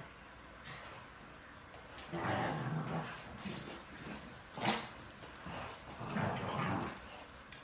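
A golden retriever and a small dog play-fighting: a string of short growls and yips starting about two seconds in, with one sharp yip or snap near the middle.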